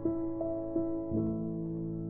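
Slow instrumental background music: sustained piano notes struck about every half second, the last one ringing on and slowly fading.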